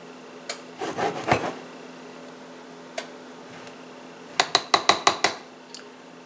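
Kitchen utensils and dishes being handled: a short clatter about a second in, a single click, then a quick run of about eight sharp taps.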